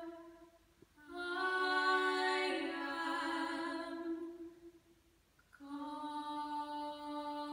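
Two women singing long held notes together in close harmony, with hardly any piano underneath. Two sustained phrases, each fading out to a brief near-silent pause before the next begins.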